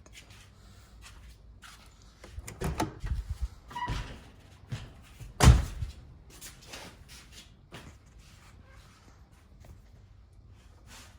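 A scatter of knocks and clatter, with one loud slam about halfway through.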